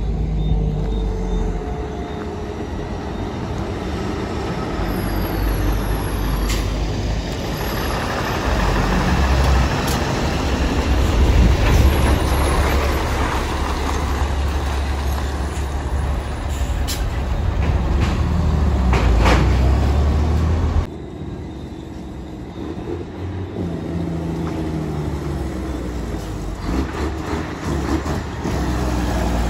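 Cummins N14 diesel engine of a loaded International truck running as it hauls sand. The engine note changes in steps and drops off suddenly about two-thirds of the way through.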